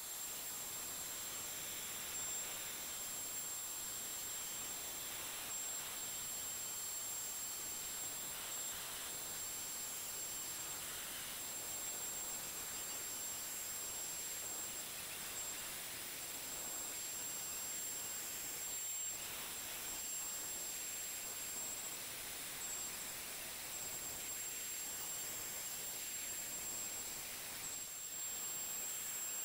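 CNC router spindle spinning a 1/4-inch V-bit as it engraves shallow lines into acrylic: a steady high-pitched whine over a hiss.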